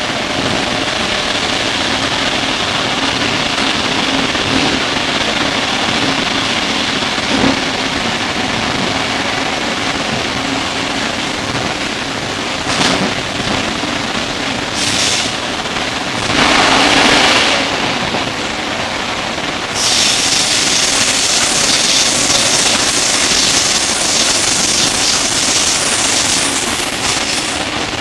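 Interior running noise of a Sydney R set double-deck electric suburban train in motion: a steady rumble of wheels and running gear. A brief louder rush of noise comes just past the middle, and a higher hissing noise joins for most of the last third.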